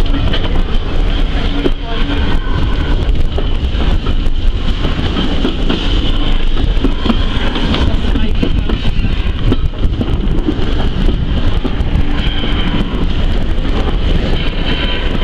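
Heritage steam railway train running along the line, heard from aboard the carriage: a steady rumble of wheels on rail with frequent small clicks and clatter.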